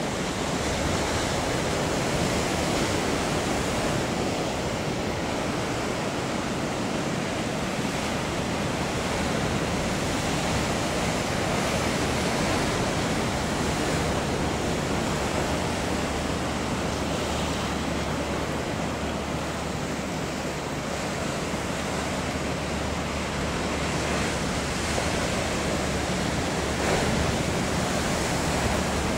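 Steady rush of surf and breaking waves, with wind on the microphone.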